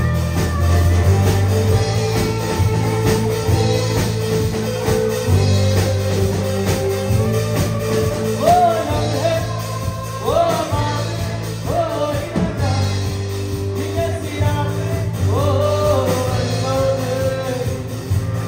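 Live band playing amplified music on electric guitar, keyboard and drums, with a man singing into a microphone; his voice comes in about eight seconds in.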